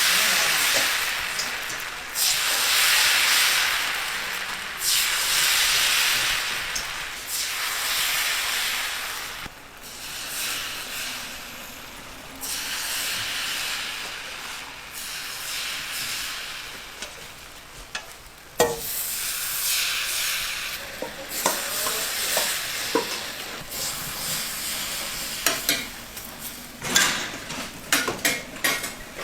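Food frying and sizzling, the hiss swelling and fading in waves. In the second half come sharp clicks and scrapes of metal utensils against the cooking surface, thickest near the end.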